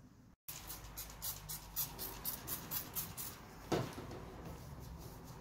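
Light clicks and scuffs as a small puppy is handled on a stainless steel exam table, with one short louder sound about three and a half seconds in.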